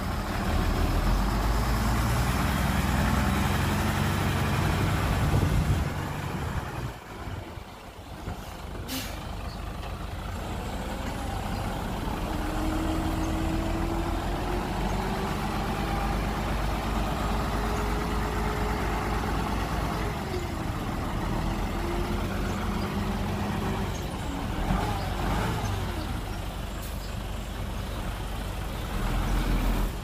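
Heavy diesel engine running hard for the first six seconds, easing off around seven seconds in, then running steadily again with a faint whine over it.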